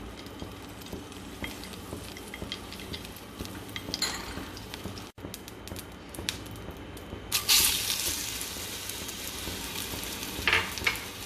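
Ghee melting and bubbling in a hot pan, with light scattered crackles and pops. About two-thirds of the way through, a sudden loud sizzle starts as banana slices go into the hot ghee, and it carries on as steady frying.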